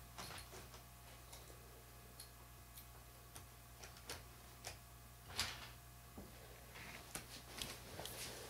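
Faint, irregular light clicks and taps of small plastic HO scale model train pieces being handled on the layout, over a low steady hum.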